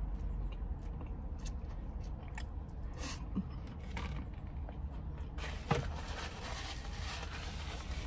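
Close-miked chewing and mouth sounds of a person eating a chicken sandwich, with scattered short smacks; the loudest comes just before six seconds in.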